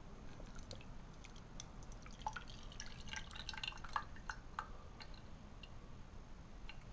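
Whey dripping and splashing from a metal strainer into a glass dish as the milk curd is strained out: a faint scatter of quick drips, thickest around the middle.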